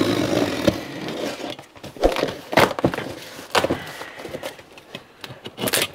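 A knife blade drawn along packing tape on a cardboard box, slitting it open: a scratchy scraping at first, then several separate sharp taps and knocks on the cardboard.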